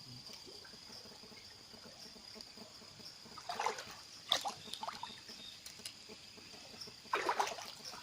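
River water splashing and trickling, with short bursts of splashing about three and a half seconds in and again near the end, over a steady high-pitched tone.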